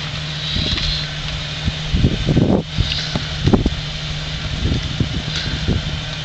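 Jeep Wrangler engine running steadily at low revs while the Jeep crawls up a rock ledge, with a few short louder bursts about two to three and a half seconds in.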